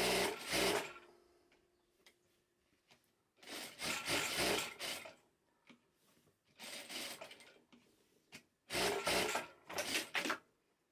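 Zoje ZJ7000E industrial plain (lockstitch) sewing machine stitching in four short runs of about one to two seconds each, stopping between runs.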